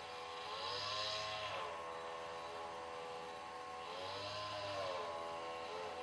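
An engine running, its pitch rising and falling again three times, about every three seconds, as if revved up and eased off.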